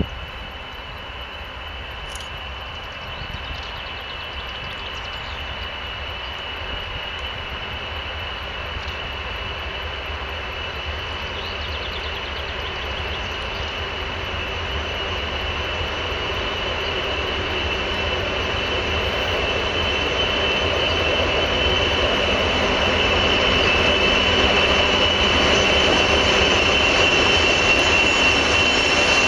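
Twin-section 2TE116 diesel locomotive approaching with a freight train, its diesel engines growing steadily louder as it nears. The sound is a low rumble with a steady high whine over it.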